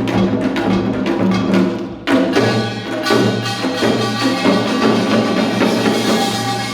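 Live music with a quick, even beat of sharp knocks, which breaks off briefly about two seconds in and resumes fuller, with held tones over the percussion.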